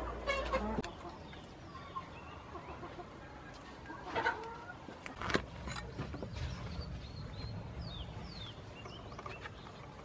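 Chickens clucking, with many short high chirps in the second half and a single sharp knock about five seconds in.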